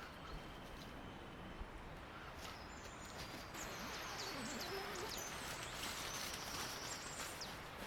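Forest ambience: small birds chirping with short, high calls a few seconds in, over a steady rustling noise that gets louder about halfway through.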